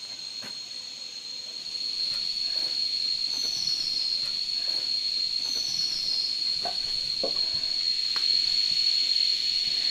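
Insects in the forest droning: one high, unbroken tone that holds steady, growing a little louder about two seconds in.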